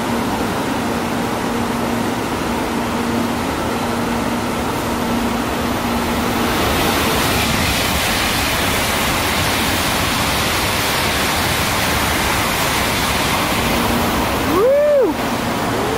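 Shinkansen bullet train passing through a station at full speed without stopping: a steady rushing roar that brightens with more hiss from about seven seconds in as the cars sweep past. Near the end comes a short tone that rises and falls in pitch.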